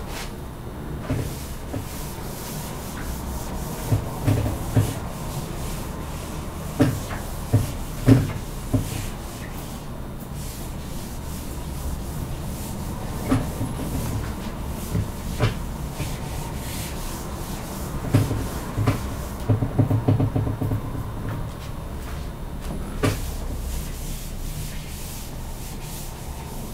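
Whiteboard eraser rubbing across a whiteboard, wiping off marker writing, with irregular light knocks and thuds against the board.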